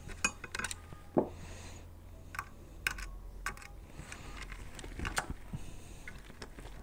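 Sparse light clicks and taps of small parts being handled while a VW Golf 2 door mirror is taken apart, over a low steady hum.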